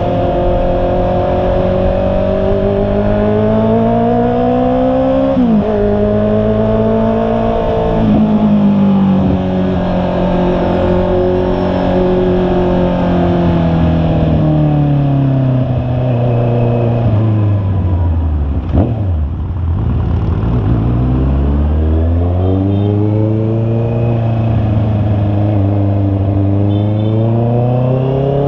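Honda CB650R's inline-four engine under way: revving up with two quick drops in pitch at upshifts about five and eight seconds in, then winding down slowly to a low idle-like pitch. A sharp click comes near the low point, then the engine pulls up through the revs again and levels off.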